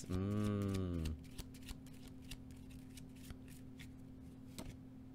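A deck of tarot cards being shuffled by hand: a run of faint, quick card clicks. A drawn-out spoken word fills the first second.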